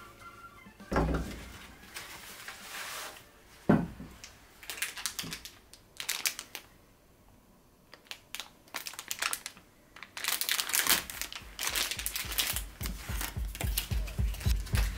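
Crinkling and rustling of something being handled, with a couple of dull knocks in the first few seconds.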